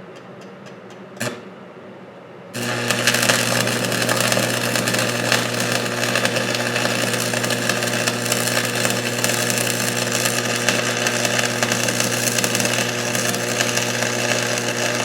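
Stick-welding arc from a 1/8-inch Hobart 6013 rod: after a few sharp clicks, the arc strikes about two and a half seconds in and burns steadily with a loud crackling sizzle over a low, even hum.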